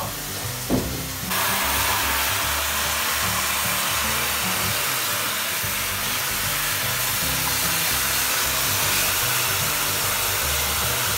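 Hand-held shower head spraying water into a plastic tub, a steady hiss that starts about a second in, just after a brief knock.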